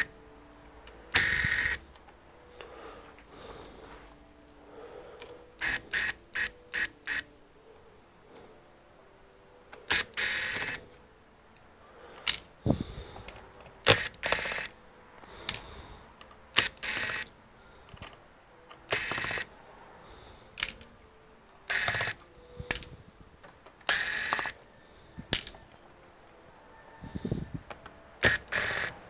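Small electric screwdriver whirring in about a dozen short bursts as the screws of a laptop's bottom cover are backed out, with light clicks between the bursts.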